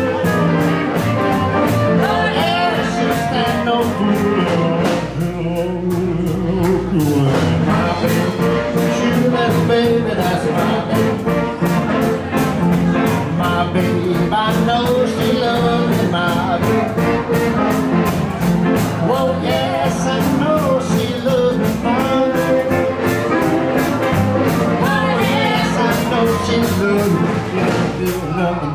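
Live band playing, with electric and acoustic guitars over a steady beat.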